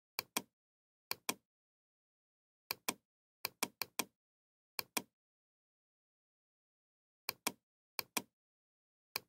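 Computer mouse clicks, about nine of them at uneven intervals, each a quick pair of sharp clicks (button press and release), as the scrollbar arrow is clicked to scroll a document.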